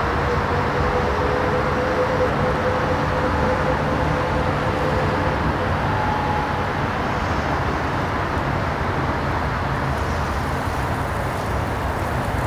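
Jet airliner engines: a steady rumbling roar with a faint whine that fades out about five seconds in.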